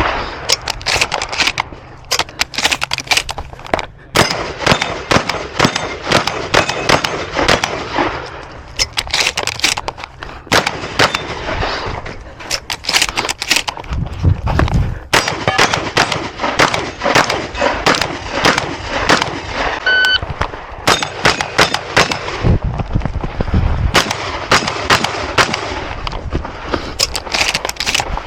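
12-gauge shotgun fired many times in quick strings, the shots ringing out with echoing tails, with short breaks between strings.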